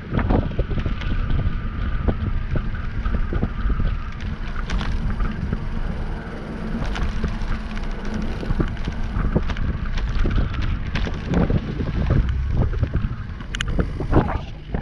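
Wind buffeting the microphone of a camera on a moving bicycle, over a steady low rumble, with frequent small knocks and rattles from the bike over the street.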